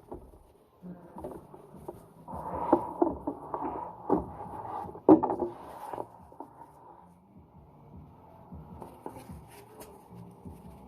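Dishes being washed by hand: a few seconds of clattering knocks and clinks, the loudest knock about five seconds in, then quieter handling noises.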